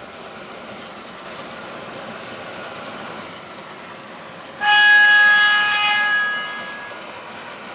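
MTH R40 subway model train's onboard DCS sound system sounding its horn for about two seconds, starting a little past halfway, over the model's steady running sound on the track.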